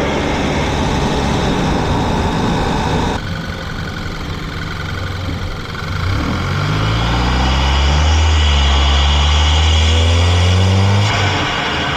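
Volkswagen Tiguan's turbocharged engine with its turbo muffler deleted, heard close up while driving, in short clips that change abruptly about three seconds in and again near the end. From the middle on the engine accelerates, its pitch rising, with a thin high whistle from the turbo over it.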